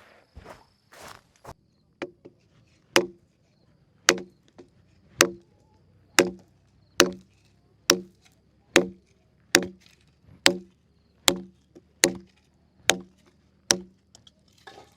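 Wood being chopped with steady strikes, about thirteen blows a little under a second apart, each a sharp knock with a short woody ring, the kind of chopping done to prepare campfire wood.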